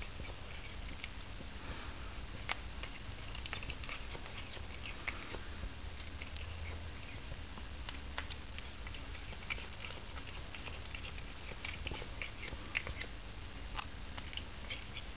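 Cornish Rex cat chewing lettuce, with small crisp crunching clicks at an irregular pace.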